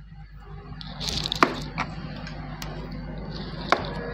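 Handling noise at a repair bench: a few sharp clicks and taps over a steady low hum and hiss, which rises about a second in.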